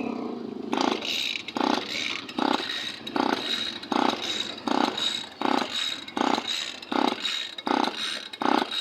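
Rhythmic scraping strokes, about a dozen in an even beat a little faster than one a second, starting about a second in.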